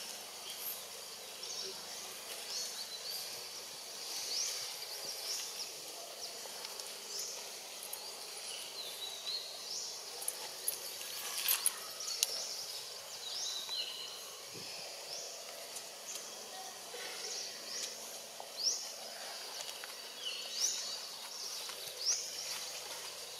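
Outdoor forest ambience with birds chirping: short high chirps that sweep up or down, recurring every second or two, with a couple of sharp clicks about halfway through.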